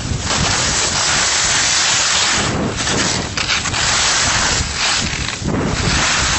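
Wind rushing over the microphone of a skier moving downhill at speed: a loud, steady noise that drops out briefly a few times.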